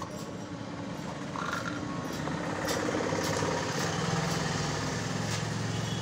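A motor engine running steadily, growing louder about two seconds in, with scattered light clicks.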